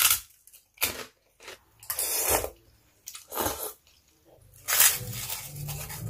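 Close-up eating sounds: a run of about six separate crunching bites and chewing noises, with a steadier low hum near the end.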